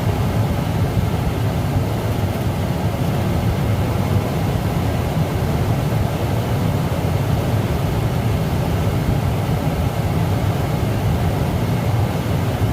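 Tractor engine running steadily while pulling a grain cart: a constant low drone with no change in speed.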